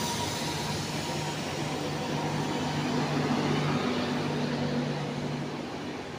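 Express train's passenger coaches rolling past at reduced speed: a steady rumble and rush of wheels on rail with a low hum underneath, easing off slightly near the end.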